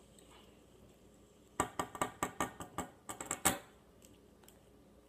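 Fidget spinner being handled: a rapid, irregular run of about a dozen hard clicks and clacks lasting about two seconds, starting a second and a half in, the last one the loudest.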